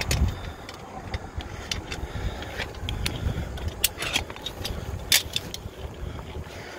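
Scattered sharp clicks and clinks of small hardware being handled, over a low wind rumble on the microphone.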